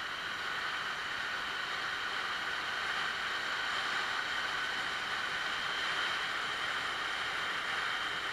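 A Yamaha Axis 90 scooter under way: a steady hiss of wind and road noise with its small two-stroke engine running evenly beneath it, the engine now running properly after its clogged air-cleaner-box intake was cleared.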